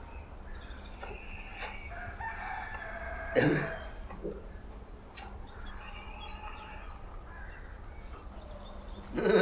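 A rooster crowing, followed by further shorter fowl calls. A short, louder sound cuts in about three and a half seconds in.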